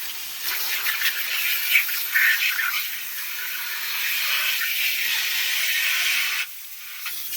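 Garden hose spraying water into a hot grill, with a steady steam hiss as the fire is doused. The spray cuts off abruptly about six and a half seconds in.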